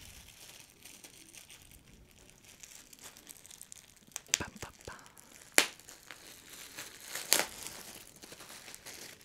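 Thin clear plastic packaging bag crinkling and rustling as it is opened and a folded cotton bodysuit is pulled out, with a few sharper crackles, the loudest about five and a half seconds in.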